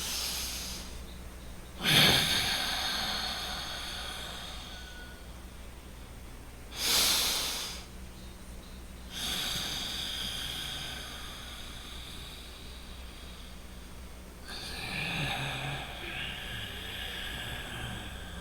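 A man breathing deliberately and loudly through his nose in slow, unevenly paced breaths, with short held pauses between them. A sharp-starting breath about two seconds in trails off over a few seconds, a short forceful one comes at about seven seconds, then two longer drawn-out breaths follow.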